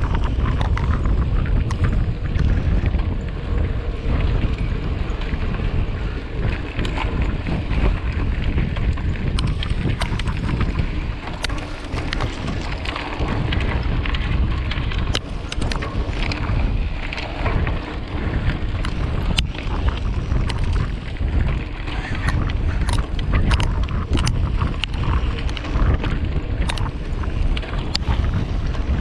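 Wind buffeting the microphone of a mountain bike moving fast along a trail, with the bike clicking and rattling over bumps. The clicks are most frequent in the second half.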